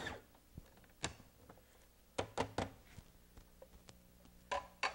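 A countertop food processor's motor cuts off at the very start. Then come a few light knocks and clicks: one about a second in, three close together around the two-second mark, and two near the end.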